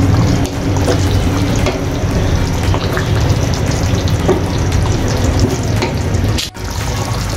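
Beef curry gravy bubbling and sizzling in a nonstick pan while a spatula stirs through the meat, with small scrapes and clicks against the pan. The sound drops out for an instant near the end.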